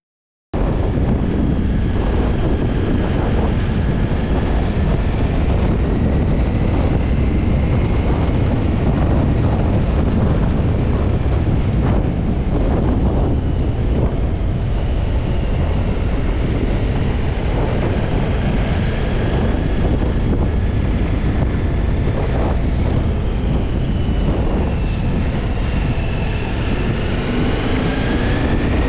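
Ducati Multistrada V4 S motorcycle riding, with wind rushing over the microphone. It starts abruptly about half a second in. The engine's faint whine rises and falls with speed and climbs near the end.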